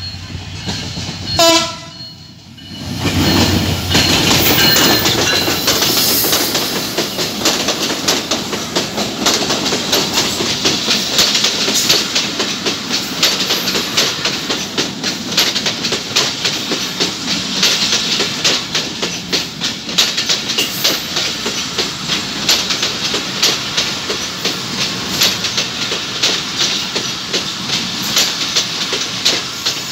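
A short blast of a diesel locomotive's horn about a second and a half in. Then the EMD GT42AC diesel-electric locomotive passes close by, followed by a long train of passenger coaches whose wheels clatter steadily over the rail joints.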